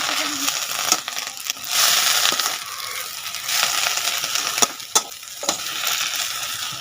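Drumstick leaves and ridge gourd cooking in a pan with a steady hiss, stirred with a utensil that clicks against the pan a few times.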